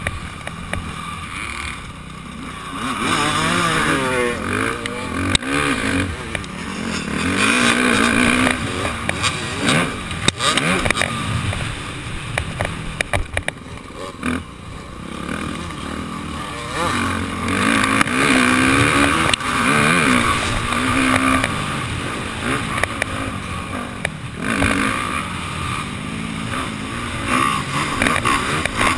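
Dirt bike engine recorded from the rider's helmet camera, revving up and down over and over as the throttle opens and closes around the track.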